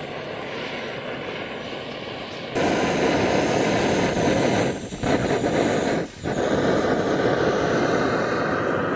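Canister gas camping stove burning with a steady hiss, getting louder about two and a half seconds in and dipping briefly twice near the middle.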